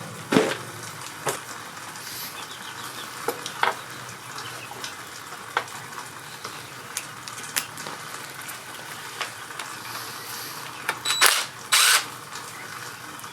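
Scattered metallic clinks and clanks of hand tools: a socket being fetched and fitted to unscrew the 8 mm shift spindle guide plug from the engine's left crankcase. The sound sits over a faint steady hiss, with two louder short rattles near the end.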